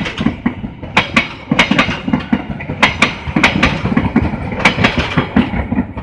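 Passenger train coaches passing close by, their wheels clacking over rail joints in quick pairs, a pair roughly every second, over a steady rolling rumble.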